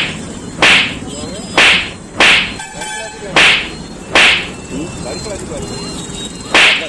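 Six sharp whip-like swishes at irregular intervals, each loud and brief, laid over a steady bed of street traffic noise and faint voices.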